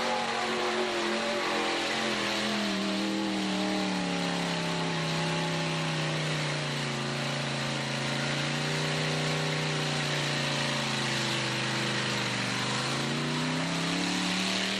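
Jeep CJ's engine running hard under load as it ploughs through a mud pit. The revs sag and hold low for several seconds as it bogs down, then climb again near the end.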